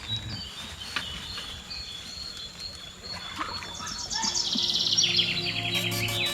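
Quiet creekside ambience with a steady high insect tone and faint bird chirps. About four seconds in, background music comes in with sustained low notes and a fast, falling rippling sound.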